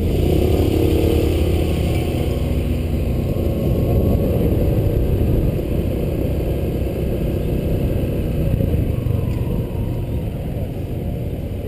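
Honda PCX125 scooter's single-cylinder four-stroke engine running at low speed, heard from the rider's helmet, with a heavy low rumble of wind on the microphone. The sound eases slightly about halfway through.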